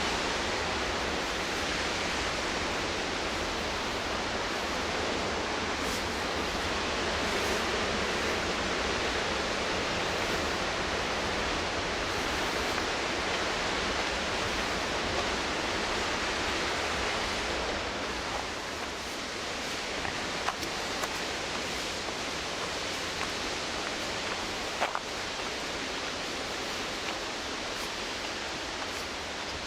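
Steady rush of whitewater on the McKenzie River, an even hiss that eases off a little about two-thirds of the way through. A few faint ticks come near the end.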